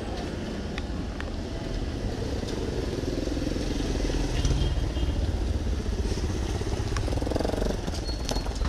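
Motorcycle engine running close by amid steady street noise, getting louder about halfway through.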